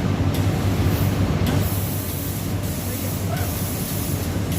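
Steam iron fed by a steam boiler, letting out steam in repeated hissing spurts of about a second each, over a steady low hum.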